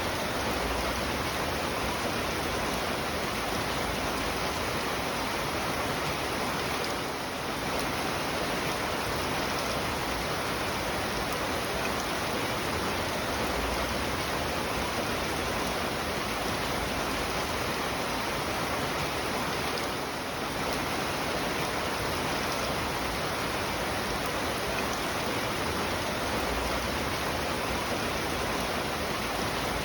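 Steady heavy rain, a dense even hiss with no single drops standing out, dipping slightly for a moment twice.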